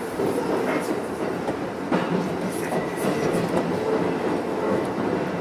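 Electric commuter train running through an underground tunnel, heard from inside the front car: a steady rumble of wheels on rail, with a few sharp clicks of the wheels over rail joints about two seconds in and again a second later.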